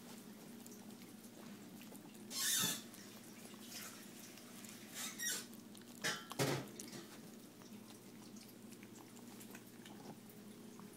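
Cats eating from a plastic bowl at close range: soft chewing and licking. There are a few short louder noises, the loudest about two and a half seconds in and two close together about six seconds in, over a low steady hum.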